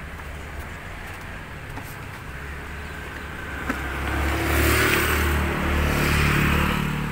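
A motor vehicle passing on the road: a low engine hum that grows louder about four seconds in, with a rush of tyre and road noise, then eases off near the end.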